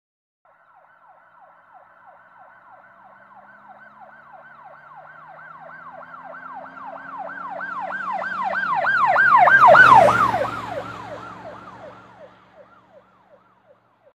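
Emergency-vehicle siren in a fast yelp, about three sweeps a second, growing louder as the vehicle approaches. It passes about ten seconds in with a drop in pitch, then fades away, with vehicle noise rising and falling underneath.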